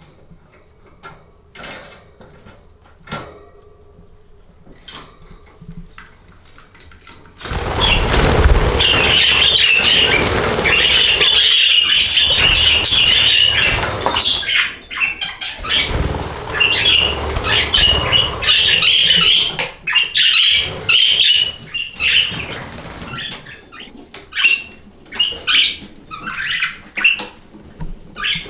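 Budgies chirping and chattering with wings flapping. It starts suddenly and loudly about seven seconds in, after a few faint clicks, and near the end it breaks up into shorter runs of chirps.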